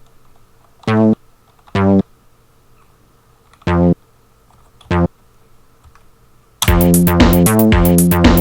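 Four single notes of a tracker bass sample, each short and played one at a time with pauses between them. About two-thirds of the way in, the pattern starts playing: a programmed drum beat with the bass line, in the style of Amiga soundtracker music.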